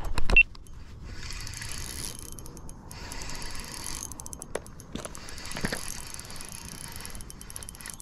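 Spinning reel being cranked in spells to bring in a hooked fish on a bent rod, its gearing giving a fast, fine clicking that stops and starts. A loud thump right at the start.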